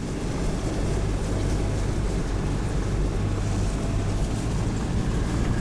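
Four-wheel drive on the move: steady engine drone with road and tyre noise.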